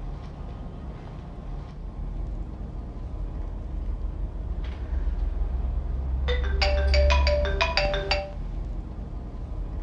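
Mobile phone ringtone: a quick two-second melody of short bright notes about six seconds in, over a steady low rumble.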